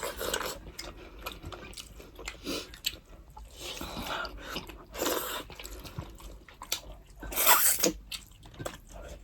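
A person chewing and biting food close to the microphone, eating goat meat soup with rice in a mukbang. There are irregular mouth noises, and a louder, breathier burst about seven and a half seconds in.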